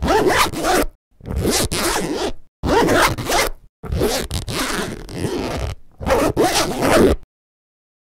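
A clothing zipper pulled five times in a row. Each rasping pull lasts about one to two seconds, with short pauses between.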